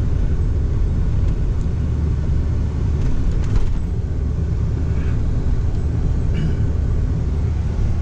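Steady low road and engine rumble heard from inside the cab of a moving pickup truck.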